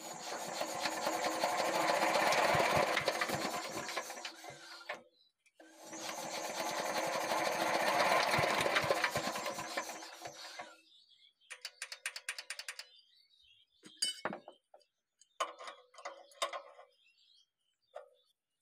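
Small Chinese single-cylinder diesel engine being cranked over to start, in two attempts of about five seconds each that swell and fade. After them come short spells of rapid ticking.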